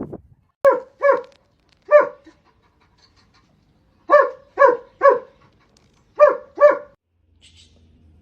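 A dog barking: eight short barks in quick groups of two, one, three and two, with pauses between.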